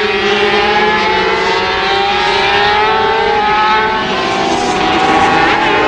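Several 125cc water-cooled two-stroke twin-cylinder Grand Prix racing motorcycles at high revs, a pack of engines heard together, their pitch rising slowly as they accelerate.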